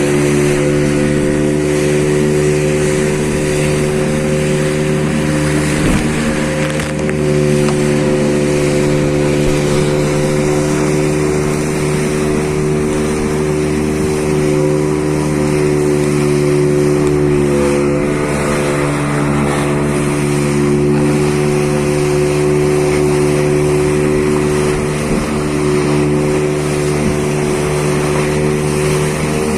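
Engine running steadily at constant speed, its pitch dipping slightly just past halfway.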